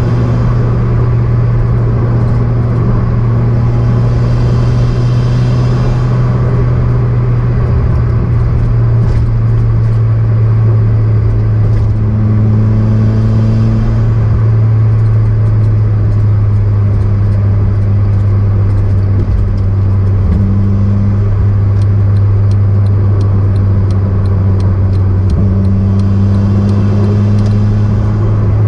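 Turbocharged car's engine droning steadily at an even pitch while cruising.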